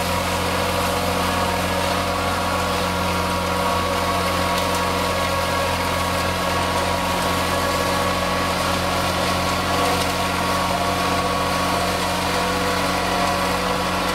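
Massey Ferguson 235 tractor's three-cylinder diesel running steadily under load, driving an Agrimaster XB 150 flail mower through the PTO as it mulches thick grass.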